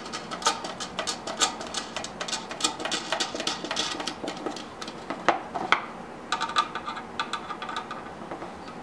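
Quick small metallic clicks and rattles of a lock washer and nut being fitted onto a machine screw inside a project box and tightened down, with two sharper clicks about five and a half seconds in.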